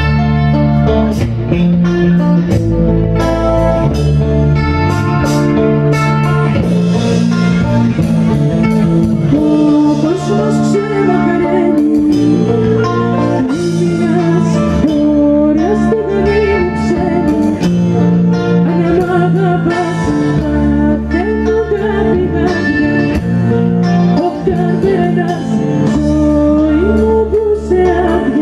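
Live band playing a song, with electric guitar and drums, and a woman singing lead into a microphone from about ten seconds in.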